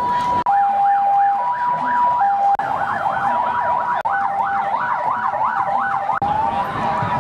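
Two emergency-vehicle sirens sound together. One alternates between two tones (hi-lo); the other gives a fast yelp of about four rising-and-falling sweeps a second. Near the end the yelp gives way to a slower rising wail.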